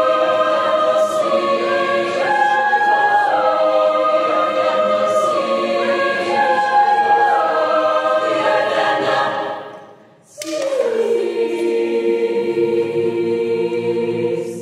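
Mixed a cappella choir in six parts singing in close harmony, the basses on a rhythmic 'dm dm' pattern under the upper voices. About ten seconds in the choir breaks off for a brief pause, then comes back softly on 'seas' with a slight falling slide, slows, and holds the final chord before cutting off.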